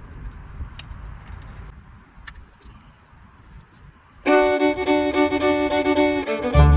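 A faint low rumble with a few light clicks, then fiddle music starts suddenly about four seconds in, with a bass line joining near the end.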